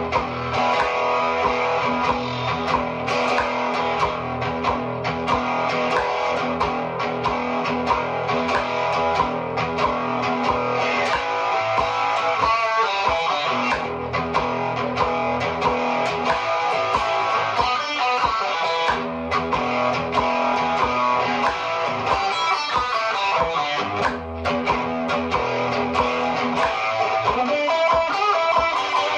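Prodipe Stratocaster-style electric guitar played through an amplifier, rock lines with quick runs of notes in several places.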